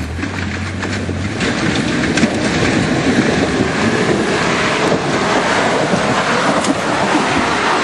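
Suzuki Samurai 4x4 running hard under load as it climbs a steep, rocky trail, a rough, noisy engine-and-terrain sound that swells over the first few seconds and then holds loud.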